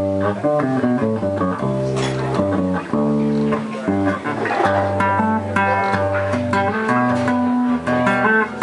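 Electric bass played as a chordal instrumental: plucked notes and chords ringing on over a changing melody line.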